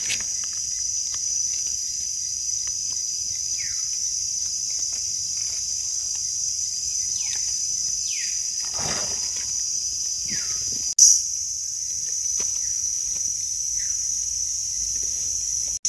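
Steady high-pitched drone of an insect chorus, with a few short bird calls that slide downward in pitch. A single brief click comes about two-thirds of the way through.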